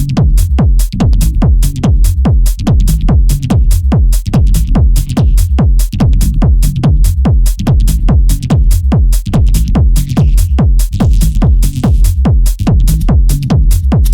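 Electronic dance track: a fast, steady drum-machine beat over a heavy bass line whose repeated notes slide down in pitch.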